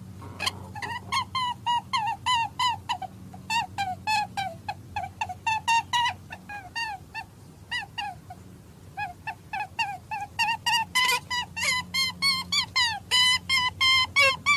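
A rapid, unbroken series of short animal calls, about three or four a second and slightly denser and louder near the end, over a low steady hum.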